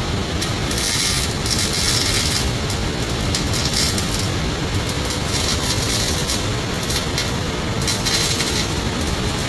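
MIG welding arc crackling and hissing in several short runs of about a second each, starting and stopping, over a steady low rumble of workshop machinery.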